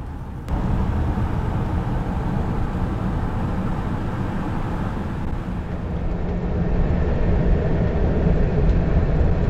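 Road and engine noise inside a truck's cab while driving on a highway: a steady low rumble with tyre hiss, joined by a low steady hum about six seconds in.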